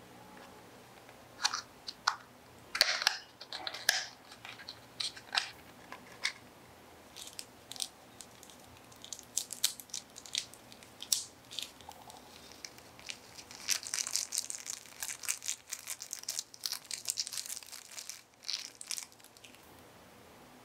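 Small paper packet being crinkled and torn open, with scattered light crackles and clicks, then several seconds of dense crinkling near the end as its powder is shaken out into a small glass bowl.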